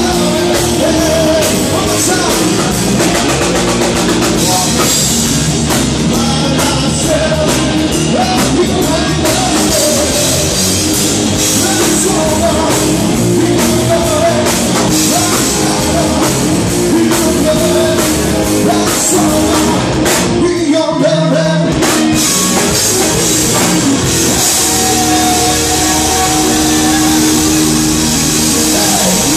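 Live rock band playing loud: electric guitars, bass and drum kit with a male singer. The band drops out briefly about twenty seconds in, then comes back in.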